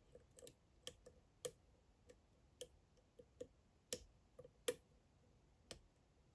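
Faint, irregular clicks of a lock pick tapping pins inside a DOM IX Saturn dimple lock, about a dozen in a few seconds. The lock is held in a false set while the picker probes for the last unset pin.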